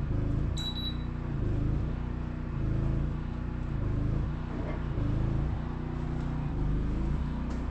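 A short, high electronic beep about half a second in, over a steady low mechanical drone that wavers slightly in pitch.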